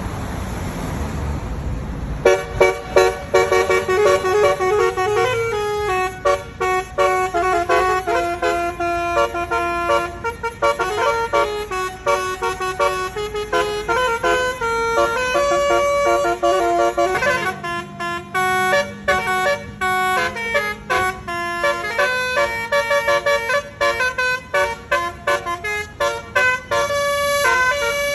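Basuri multi-tone 'telolet' bus horn playing a fast melody of stepped notes, starting about two seconds in after a low rumble.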